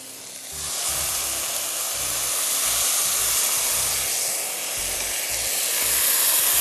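Sizzling and steam hissing from a hot pan of oil tempering as soaked red lentils are poured in; the hiss comes up about half a second in.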